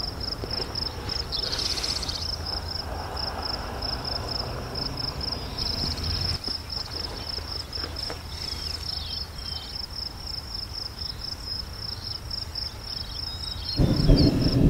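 Crickets chirping in a steady, rapid pulse of high notes. Near the end a louder low rumble sets in.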